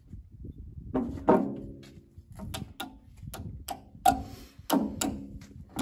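Claw hammer striking nails in old wooden boards that lie on a steel tractor loader bucket, to drive them back out and pull them. Two louder blows come about a second in, then a quick run of sharp taps, some with a short metallic ring.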